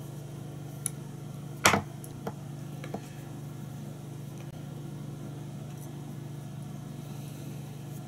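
Small clicks of fly-tying tools and fingers at the vise: a few short, sharp clicks, the loudest about two seconds in, over a steady low hum.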